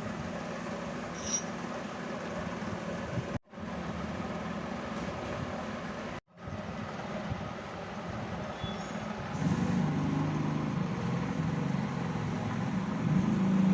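Steady mechanical running noise with two brief dropouts. A low hum comes in about nine seconds in and grows louder.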